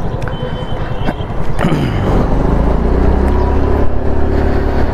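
Motor vehicle engine running with road noise. About a second and a half in, its pitch drops quickly and settles into a steady low hum.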